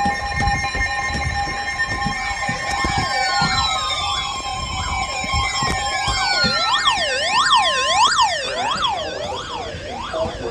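Emergency alert tones layered together: steady electronic alert tones, some sliding down in pitch, then from about halfway an electronic siren yelping rapidly up and down, loudest a little before the end.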